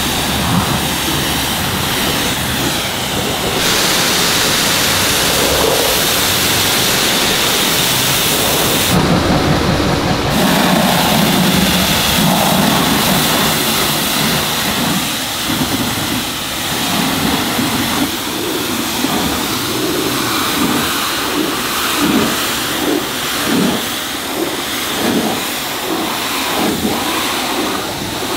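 Pressure-washer water spray hitting car bodywork: a loud, steady hiss whose character shifts a few times as the spray moves, with an uneven pulsing in the second half.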